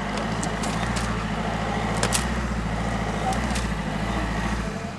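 An engine running steadily, a low even hum, with a few light clicks and knocks over it, the sharpest about two seconds in.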